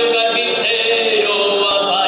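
A man singing a worship song into a microphone, amplified through a church PA, over instrumental accompaniment; the melody holds and glides between long notes.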